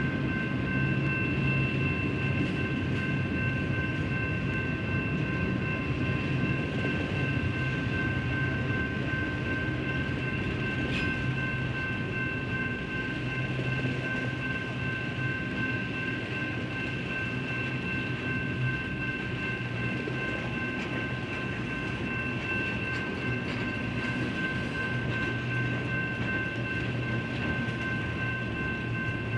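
Double-stack intermodal train's container well cars rolling past: a steady rumble and clatter of steel wheels on the rails, with steady high-pitched ringing tones over it.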